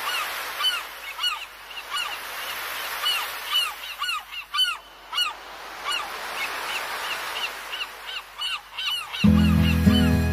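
Seagulls calling over the wash of sea surf: many short, arching cries, several a second. About nine seconds in, music starts and becomes the loudest sound.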